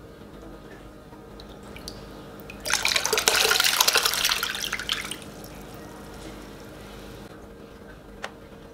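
Water splashing as a glass bowl of water and fish is tipped out into a tub of water: one pour about three seconds in, lasting about two seconds.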